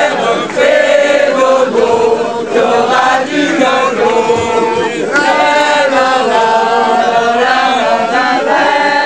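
A group of men singing together in chorus, with long held notes.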